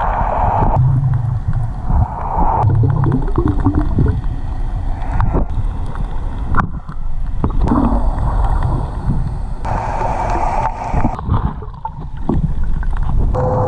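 Underwater, a diver breathes through a regulator: a bubbling rush of exhaled air every few seconds, with gurgling water in between.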